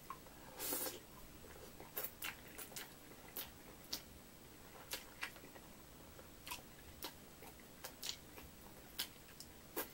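A short slurp of instant ramen noodles under a second in, then chewing with many soft, irregular wet mouth clicks and smacks.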